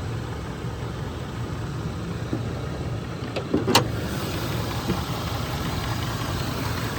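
Ford F350's 6.2-litre gas V8 idling steadily, with one sharp click a little past the middle.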